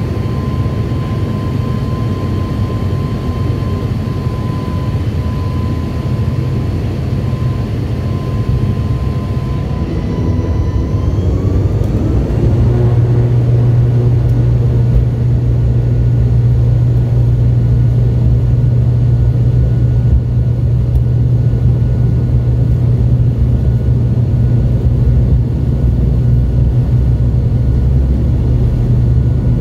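ATR 72-500's Pratt & Whitney PW127 turboprop engines and propellers running, heard from inside the cabin as a steady drone with a whine. About ten seconds in, the pitch rises and the low propeller hum becomes louder and stronger, holding steady after that: the engines and propellers are being brought up in speed for take-off.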